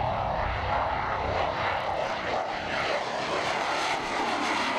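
F-16 jet fighter flying past low, its jet engine a loud, steady roar.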